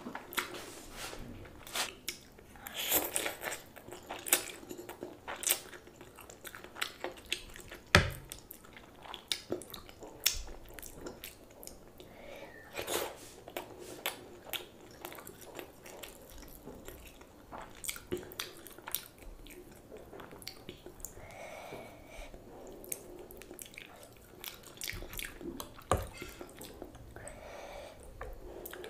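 Close-miked chewing with frequent wet mouth clicks and smacks from a person eating. There is a sharper knock about eight seconds in and another a few seconds before the end.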